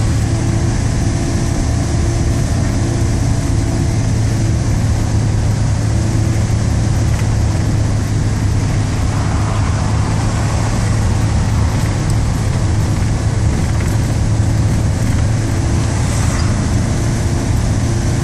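Steady low engine drone and road noise heard from inside a vehicle's cabin as it drives downhill, with a few brief swells of rushing noise from passing traffic.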